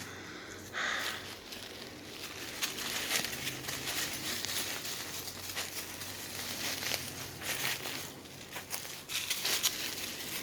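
Footsteps rustling and crunching through undergrowth on a woodland path, an irregular run of crackles.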